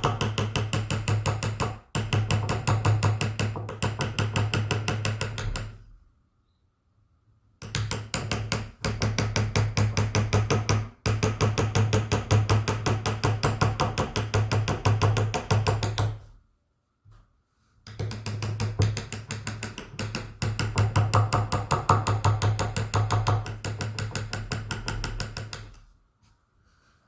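Rapid, evenly paced tapping of a mallet driving a carving chisel into wood, several knocks a second. It comes in three long runs, with short pauses about six and sixteen seconds in, and stops shortly before the end.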